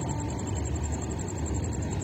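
Steady low vehicle rumble, with the last tone of a horn fading out in the first moment.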